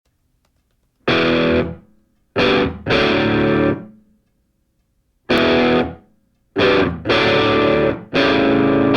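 Background music: distorted electric guitar chords hit in short stop-start bursts with silent breaks between them, starting about a second in.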